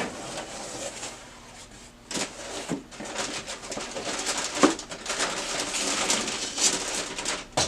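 Packaging of a new printer imaging unit rustling and crinkling as it is unwrapped, with a few sharp knocks and clicks in between.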